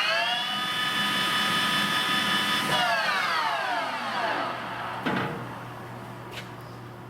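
Sharp engine lathe's geared headstock running at a steady spindle speed with a pitched gear whine. Just under three seconds in the spindle is switched off and the whine falls in pitch as it coasts down. A single clunk follows about five seconds in, and a low hum is left.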